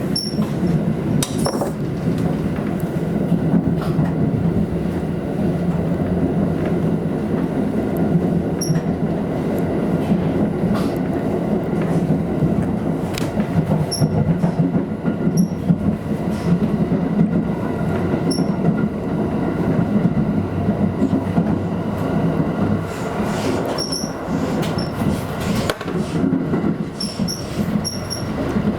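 Limited express electric train running at speed, heard from inside a passenger car: a steady rumble of wheels and running gear with scattered short clicks.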